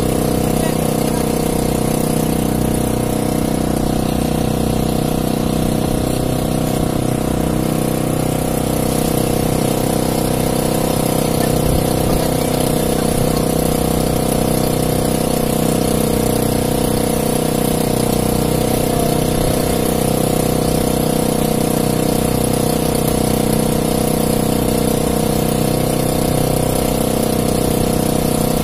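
Small outrigger fishing boat's gasoline engine running steadily at low speed, with no change in pitch or level.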